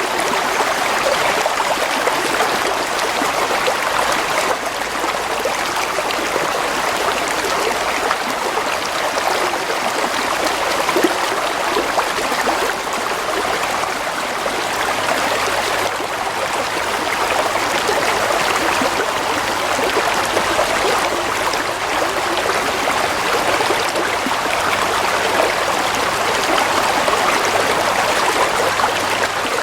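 Shallow stream of water flowing and trickling steadily.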